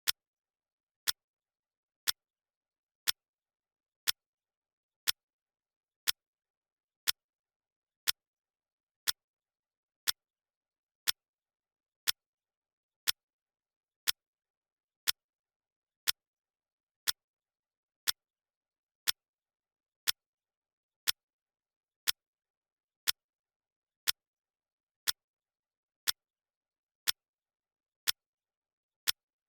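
Clock ticking sound effect, one sharp tick each second with silence in between, steady and even like a second hand.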